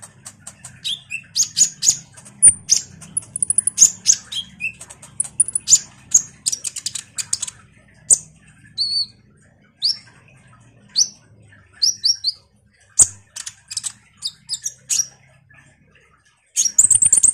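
Kolibri ninja (konin), a small sunbird, chattering in rapid runs of high, sharp chirps and short trills, with a dense flurry of chirps near the end; a faint low hum sits underneath.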